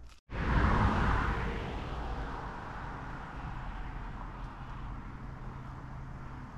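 Car driving on a road: steady tyre and engine noise with a low hum. It starts abruptly after a brief gap, is loudest for the first second or two, then settles.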